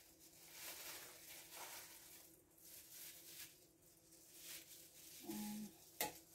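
Quiet scraping and rustling as homemade berry jam is ladled from a stainless steel pot into a glass jar, with one sharp clink near the end.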